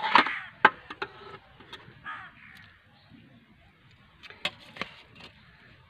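Metal ladle and perforated skimmer clinking against an aluminium cooking pot as rice and chicken are layered for biryani: a handful of sharp clinks, most in the first second and two more later on, with a couple of short harsh calls in the background.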